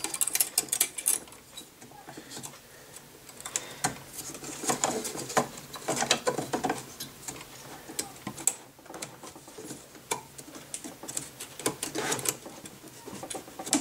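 Thin steel wire fan clip being worked by hand into the aluminium fins of a tower CPU cooler: an irregular run of small clicks, scratches and metallic scrapes.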